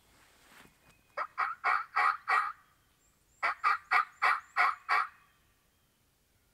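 Wild turkey calling: two quick series of about six loud, raspy notes each, separated by about a second's pause.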